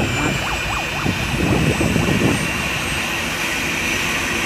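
Eurocopter EC145's twin turboshaft engines running on the ground with the main rotor turning: a steady high turbine whine over the rush of the rotor.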